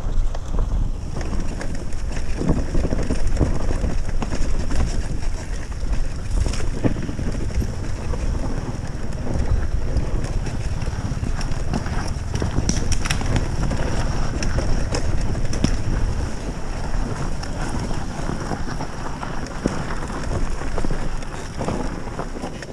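Enduro motorcycle being ridden along a dirt trail: the engine running under heavy wind buffeting on the microphone, with scattered knocks and rattles from the rough ground.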